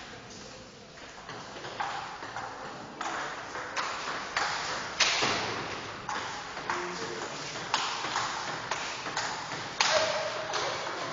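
Table tennis rally: the ball clicking off the bats and the table, a little more than one hit a second, each hit echoing in a bare hall.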